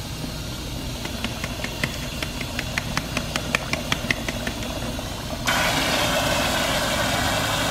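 Tap water running into a pedicure foot-spa basin, with a quick run of light ticks, about five a second, as a bottle of purple soak is shaken into the water. About five and a half seconds in, the rush of water turns suddenly louder and brighter.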